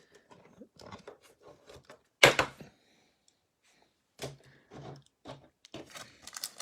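Light handling noises of trading cards being shuffled and set down, a scatter of soft clicks with one sharp tap a little over two seconds in.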